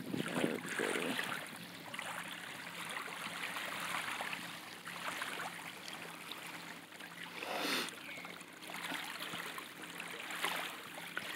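Small waves lapping at the shore in an uneven wash, with one louder surge a little past the middle.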